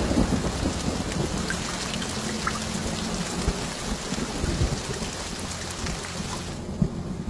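Steady rain with a low rumble of thunder dying away, the rain thinning out near the end.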